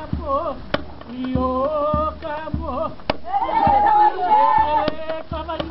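Hawaiian hula chant: a chanter's voice with wavering, ornamented pitch, over a hand-struck drum keeping a steady beat of low thumps, about two a second.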